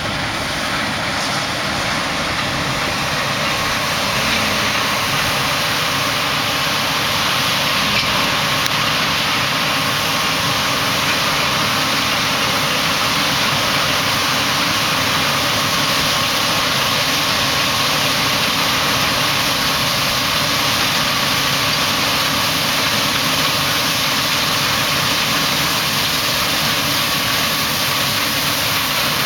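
Claas Lexion 540 combine harvester running steadily while cutting and threshing rapeseed, with a tractor and grain trailer running alongside. It is a continuous machine noise with a faint steady hum, growing slightly louder a few seconds in.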